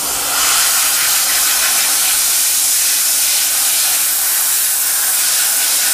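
Compressed-air blow gun hissing steadily as it blasts chips and coolant off a freshly CNC-engraved brass part.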